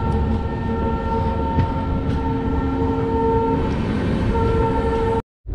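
Locomotive horn sounding a long steady multi-tone blast, breaking off briefly about four seconds in and then sounding again, over the continuous rumble of rolling rail wagons.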